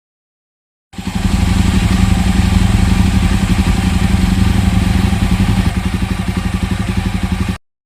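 Jawa 42 Bobber's single-cylinder engine running steadily through its exhaust, with a fast, even pulsing beat. It cuts in abruptly about a second in and cuts off abruptly near the end.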